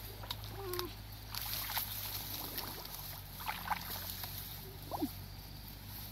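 Hands groping through shallow muddy water, with soft sloshing and small splashes at irregular moments. A few short animal chirps sound over it, one a quick falling call about five seconds in.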